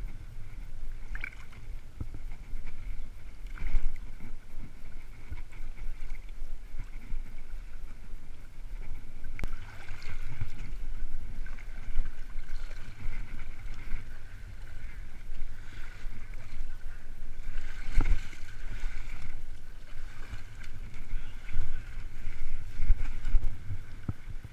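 Lake water sloshing and splashing as a seine net on wooden poles is hauled through shallow water by wading men and pulled to shore, heard muffled through a waterproof action-camera housing at the waterline, with a steady low rumble and a few sharp knocks.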